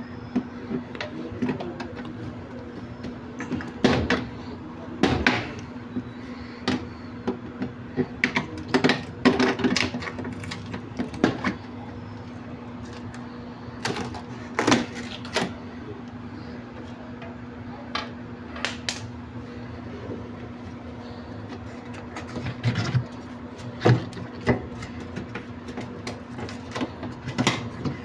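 Irregular knocks, clunks and clatter of metal parts and tools being handled, over a steady low hum with one constant tone.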